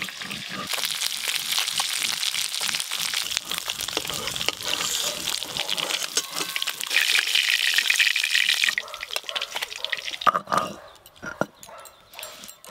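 Fish frying in hot oil in a wok, a steady sizzling hiss that stops about nine seconds in; a few scattered clicks and knocks follow.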